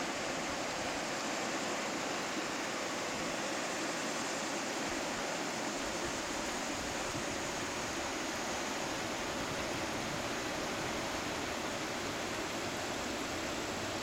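River water rushing steadily over shallow rocky riffles, an even unbroken hiss.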